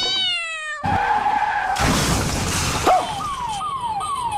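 The last sung note of a Bollywood song falls away, then a tyre-skid sound effect and a crash with shattering, as of a scooter going down. From about three seconds in, a falling tone repeats about twice a second.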